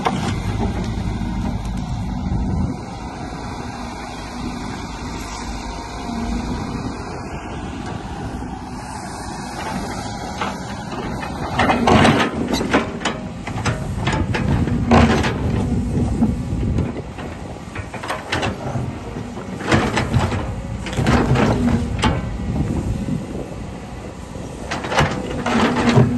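Tracked hydraulic excavator's diesel engine running steadily as its bucket digs into gravel. From about halfway through, the teeth crunch and scrape through the stones again and again.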